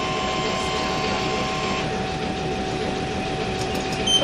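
Fukui Railway 770 series tram running on street track, heard from inside the cab: a steady rumble of wheels on rail with a motor whine that drops away about two seconds in. A short click near the end.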